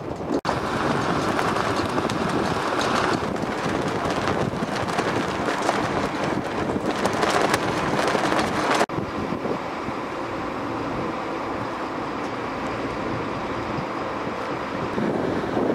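Wind buffeting the camcorder's microphone, a dense rushing noise. It drops out for an instant near the start, then about nine seconds in turns abruptly to a duller, steadier hiss.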